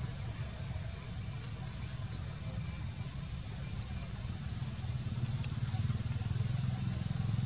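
Forest ambience: a steady, high-pitched insect drone over a steady low rumble, with a few faint ticks.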